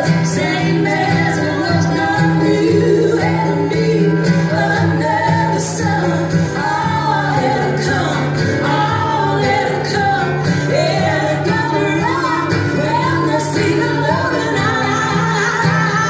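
Live band performance: strummed acoustic guitar with voices singing.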